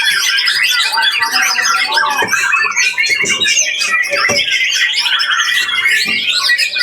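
Several caged songbirds singing at once in a contest: a dense, overlapping chorus of chirps, whistles and rapid trills, with a quick buzzy trill about five seconds in.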